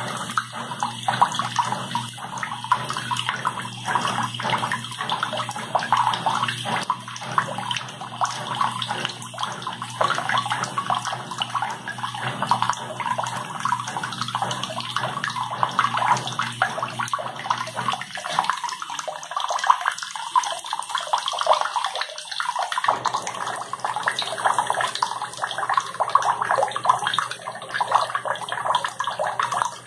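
Water from a tap running steadily into a washbasin, the stream splashing into a pool of liquid in the bowl.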